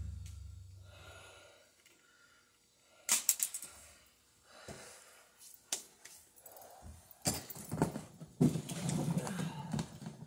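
Scattered knocks, clatter and rustling of someone moving about and handling parts: a low rumble fades in the first second, a sharp knock comes about three seconds in, and the handling noise grows busier near the end.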